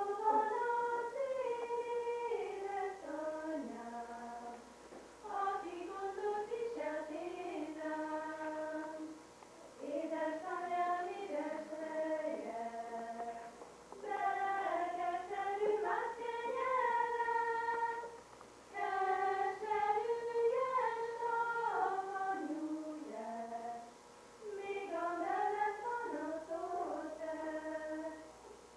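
Women's voices singing a Hungarian folk song from Moldavia in unison, in phrases of about four to five seconds with short breath pauses between them.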